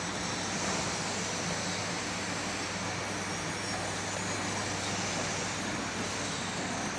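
Steady background noise with a constant low hum, no distinct knocks or clicks.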